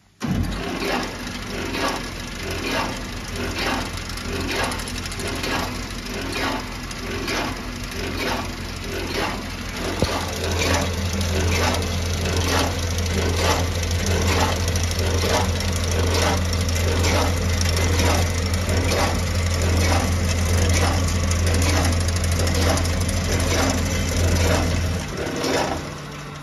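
A Startrite HB225M horizontal bandsaw, driven by a 1.5 kW three-phase motor, starts up and runs with an even ticking about twice a second. A low steady hum grows much stronger about ten seconds in and stops shortly before the end.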